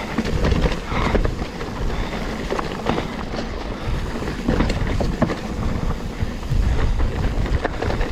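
Mountain bike rolling fast down wet singletrack on Specialized Cannibal tyres: a steady low rumble of the tyres over dirt and roots, with many short clicks and knocks of the bike rattling over the bumps, and wind on the microphone.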